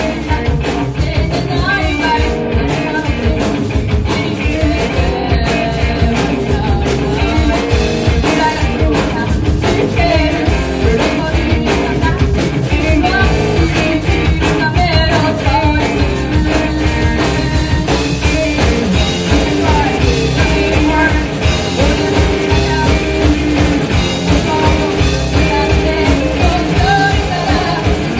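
Rock band playing live, with electric guitars, drums and sung vocals.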